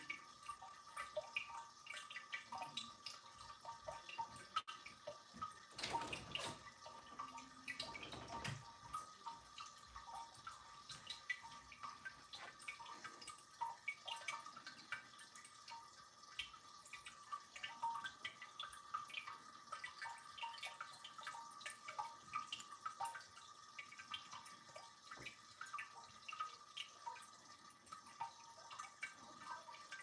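Ceramic tabletop cascade fountain, water trickling and dripping from jar spouts into the bowls below: a soft, continuous patter of small drips. A brief low noise rises over it about six seconds in and fades after about two seconds.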